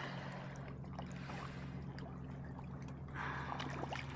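Steady low hum of a boat's motor with water lapping and trickling around the boat, and a louder splash-like rush of water about three seconds in.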